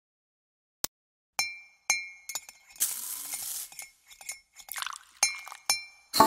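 A metal spoon stirring coffee in a ceramic mug, clinking against the sides with a series of short ringing chinks, and a brief rushing noise about three seconds in.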